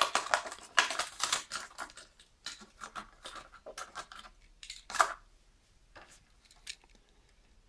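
Plastic blister pack of a Hot Wheels car being opened by hand, crinkling and crackling against its cardboard backing card. Dense rapid crackles and clicks in the first two seconds, then scattered ones with one sharper crackle about five seconds in, dying away near the end.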